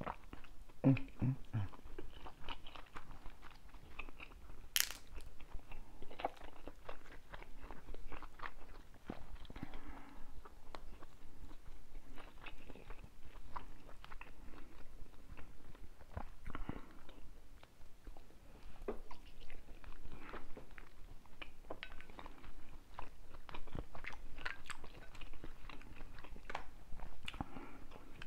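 Close-up mouth sounds of someone eating a seafood boil: chewing, biting and lip smacking, with many short wet clicks and one sharp click about five seconds in.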